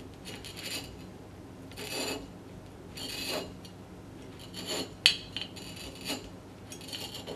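Generation Green G2 bottle cutter's scoring wheel rasping on a glass wine bottle as the bottle is turned by hand against it, scoring a ring, in short scratchy strokes about once a second. A sharp click about five seconds in is the loudest moment.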